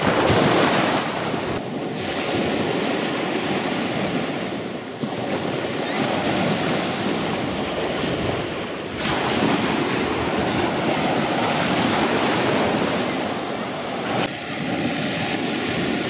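Small waves of the Caspian Sea breaking and washing up a sandy shore, a continuous surf wash that swells and eases as each wave comes in. Wind buffets the microphone.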